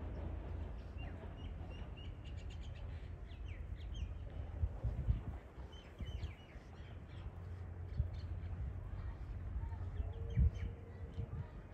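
Scattered small-bird chirps over a steady low rumble, with a few soft low thumps.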